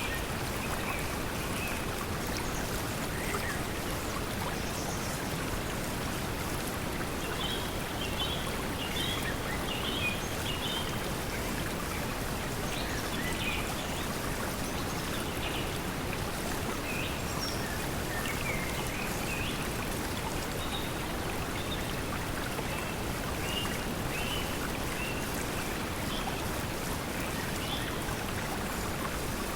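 Steady pink noise mixed with flowing water, with short bird chirps scattered throughout.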